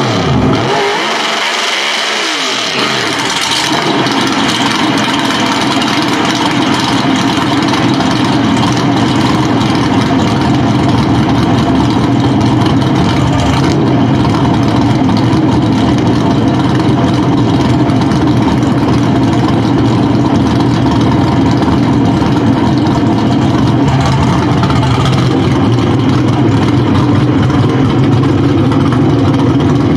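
Pro Stock drag car's naturally aspirated V8 running at a loud, steady idle. In the first few seconds its low note falls away and comes back.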